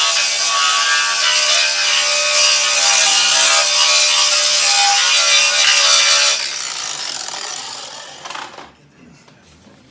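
Handheld power grinder working the steel of a snowmobile ski, running loud and steady with a wavering whine. It is switched off about six seconds in and spins down over about two seconds.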